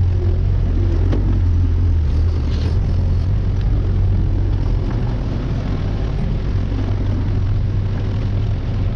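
Engine of compact heavy equipment running steadily with a low drone while working.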